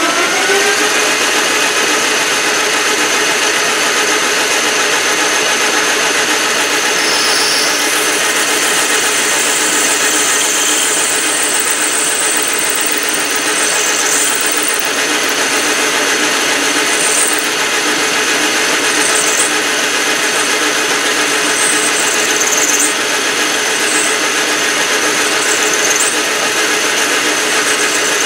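Metal lathe running steadily while a tool turns a small brass rod, with a steady machine whine. The pitch is still rising for the first second as the lathe spins up, and short high squeaks from the cut come and go.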